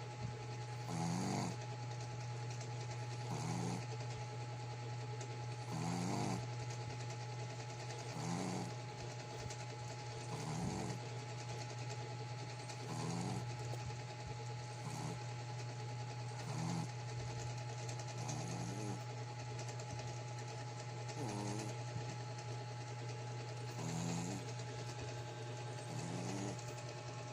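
Small Shih Tzu–Pekingese cross dog snoring in a steady rhythm, about one snore every two and a half seconds, over a constant low hum.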